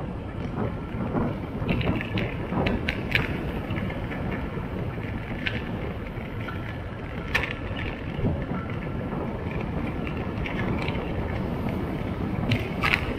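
Wind rushing over the microphone and road noise of a vehicle on the move, with a few short sharp clicks and ticks scattered through.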